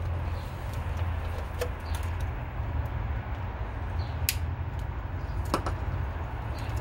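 Light clicks and handling of a wiring-harness plug being pushed onto the throttle position sensor on an LS1 throttle body, with one sharper click a little past halfway, over a steady low rumble.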